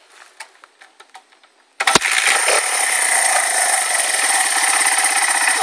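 Small four-stroke single-cylinder dirt bike engine, a Honda XR80, catching suddenly about two seconds in and running steadily with a fast pulsing note. It stops abruptly near the end. Light clicks and rustles come before it starts.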